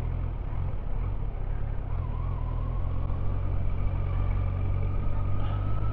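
Motorcycle engine running under a steady low rumble of road and wind noise, its pitch rising slowly as it gathers speed from about two seconds in.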